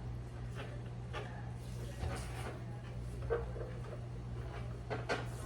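Scattered light clicks and scrapes of hand work on a car door's trim and fittings, over a steady low hum.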